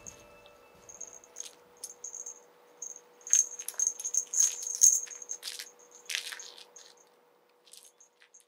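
A kitten plays with a small toy mouse, batting and biting it. This makes irregular bursts of light, bright rattling and clicking, busiest between about three and five seconds in, then dying away near the end.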